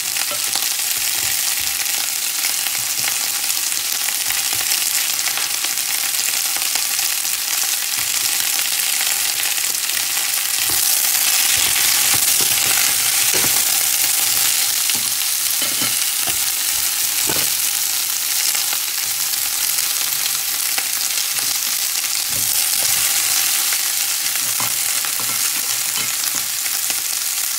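Chopped bell peppers and other vegetables sizzling as they sauté in oil and butter in a stainless steel frying pan, a steady hiss that swells for a few seconds in the middle and again near the end. A wooden spatula stirs them, with a few light knocks and scrapes against the pan.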